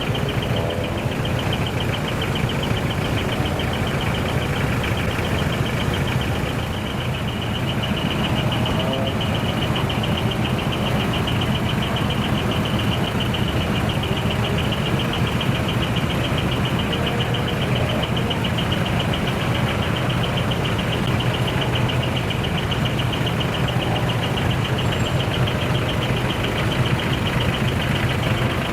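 Heavy truck diesel engine running steadily, with a rapid even pulsing throughout.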